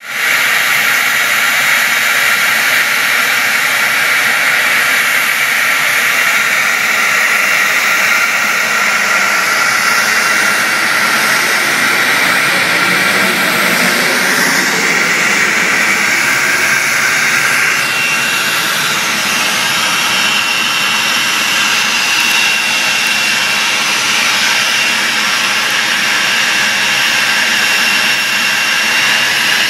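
Business jet engines whining steadily. About halfway through, the deeper sound of a jet taking off swells and fades.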